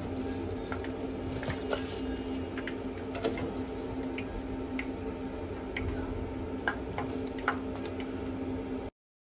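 Hot oil sizzling in a wok with scattered crackles and pops as battered cauliflower fritters are deep-fried and lifted out with a wire skimmer, over a steady low hum. It cuts off suddenly just before the end.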